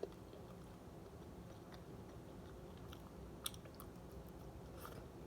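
A person chewing food quietly close to the microphone, with a few small sharp clicks and crunches, the clearest about three and a half seconds in.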